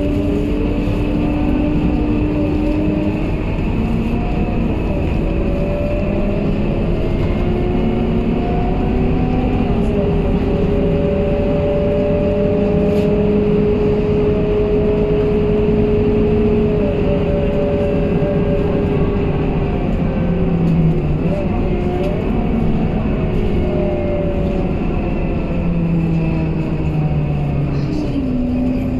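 Scania K230UB single-deck city bus heard from inside the passenger cabin, its engine and automatic gearbox whining as it pulls away and accelerates. The pitch climbs and then steps down several times as the gearbox changes up.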